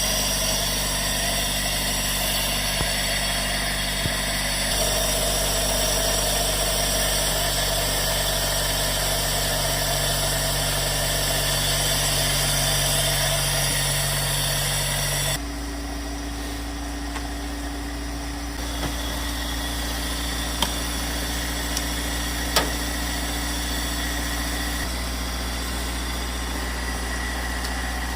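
Honda D15B VTEC four-cylinder engine running at a steady idle after a hard start. About halfway through, the sound drops suddenly to a quieter, lower hum, and a couple of sharp clicks come a few seconds later.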